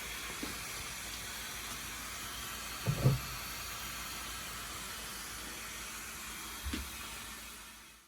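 Steady hiss of steam venting from a pressure cooker, with a soft knock about three seconds in and another near seven seconds; the hiss fades out at the end.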